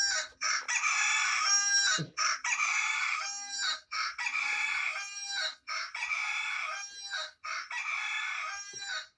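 Phone alarm tone of a recorded rooster crowing, the same cock-a-doodle-doo repeating about every two seconds, played through the phone's small speaker.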